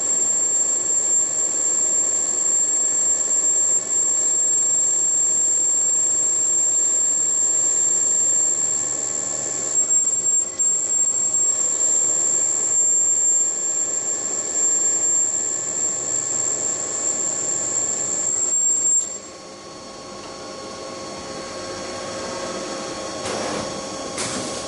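CNC machine tool cutting, with a steady high whine over lower steady hums. About three-quarters of the way through the whine stops and the level drops, leaving a quieter hum with a few brief clattering noises near the end.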